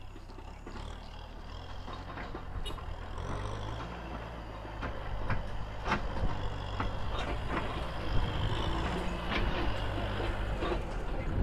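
Kubota M6040 tractor's diesel engine running under load as it pulls a loaded trailer along a rutted track, growing louder as it comes closer, with scattered sharp clanks.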